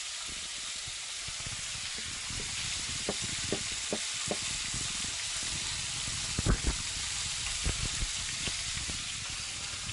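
Small crucian carp sizzling in hot oil in a frying pan, a steady hiss with a few short pops and knocks scattered through it, the loudest about six and a half seconds in.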